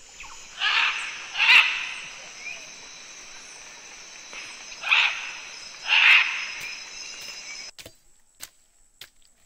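Four loud, harsh bird calls in two pairs over a steady, high insect drone of the rainforest. Near the end the drone cuts off suddenly, leaving only faint scattered clicks and snaps.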